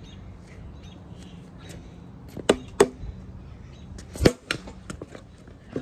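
Sharp knocks and clicks from a game of wiffle ball: two close together about two and a half seconds in, the loudest just after four seconds, and fainter ticks between.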